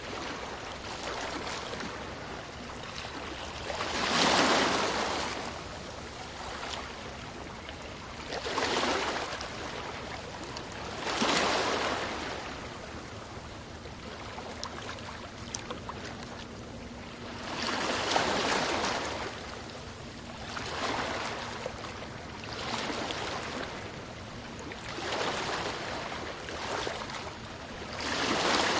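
Sea waves washing in, surges of surf that swell and fade every two to four seconds over a steady background wash, the loudest about four seconds in.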